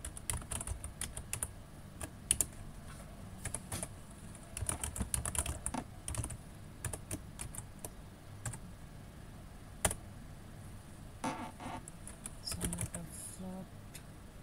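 Typing on a computer keyboard: irregular runs of key clicks with short pauses between them, with one sharper keystroke about ten seconds in.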